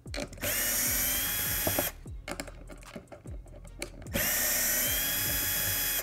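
Cordless electric screwdriver with a 5/16 nut driver backing out the stainless screws that hold the Vacuflush vacuum pump's top to its body. It makes two runs of a second or two each, and its whine rises in pitch as each run starts. Light clicks and handling noise fill the pause between the runs.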